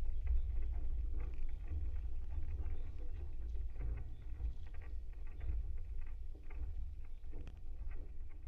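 Wooden maypole heard through contact microphones fixed to it: a steady low rumble with many small, irregular ticks and knocks as the pole and the ribbons tied to its top shift and tug.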